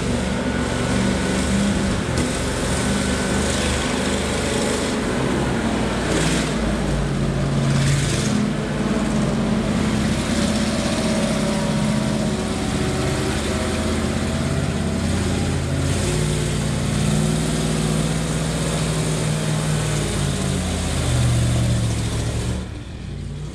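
ZIL-135 8x8 truck's twin ZIL-375 V8 petrol engines running under load as it climbs over sand mounds and up a steep bank, the engine note rising and falling with the throttle. It drops in loudness near the end.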